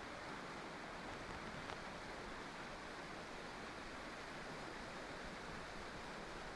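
River water rushing steadily, an even hiss with no pauses.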